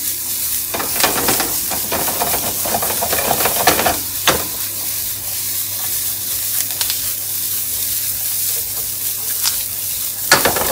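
Gnocchi and green vegetables sizzling in butter and oil in a frying pan, a steady hiss as the pan is tossed and shaken so the food flips. A few sharp knocks stand out: one about a second in, one a little after four seconds, one near the end.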